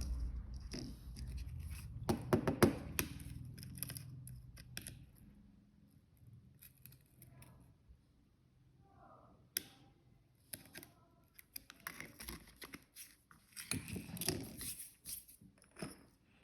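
Handling noises of a phone and its packaging: short clicks, scrapes and rustling. They come in clusters about two seconds in and again near the end, with a single sharp click around the middle.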